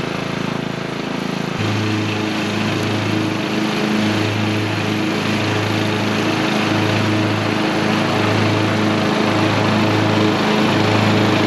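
The 14.5 HP Briggs & Stratton engine of a 2001 MTD 42-inch riding lawn mower running steadily with the mower deck engaged, cutting grass. Its note changes about a second and a half in and then holds steady, growing slightly louder toward the end.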